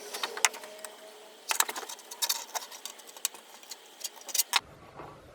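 An irregular run of sharp clicks and light taps from small hard objects being handled. The clicks stop abruptly about four and a half seconds in.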